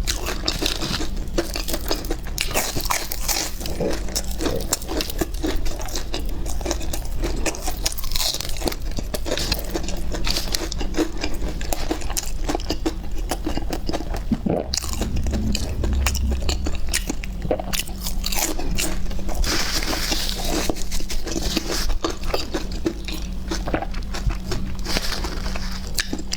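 Close-miked biting and chewing of crispy fried starch sausage, a steady run of crunches and moist chews.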